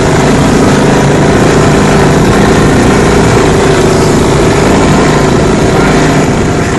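CF Moto 500 4x4 quad's single-cylinder engine running steadily, loud and close, with a slight drop in level near the end.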